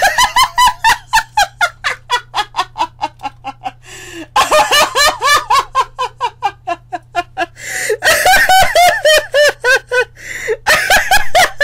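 A woman laughing hard in long fits of rapid, pulsing laughter, about four or five bursts a second, broken twice by short gasping breaths.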